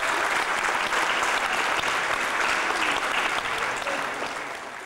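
Audience applauding, a steady dense clapping that fades away near the end.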